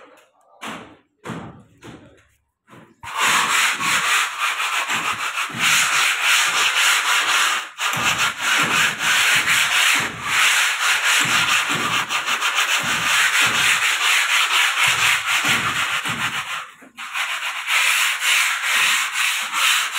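Rapid back-and-forth rubbing on rough bare concrete, as the surface is readied for paint. A few separate strokes come first, then from about three seconds in the quick strokes run continuously, with a couple of brief breaks.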